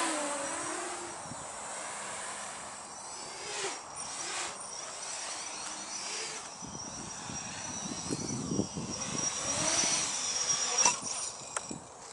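Electric motors of a small radio-controlled aircraft whining overhead, the pitch sweeping up and down as it passes, with the loudest passes near the start and again near the end.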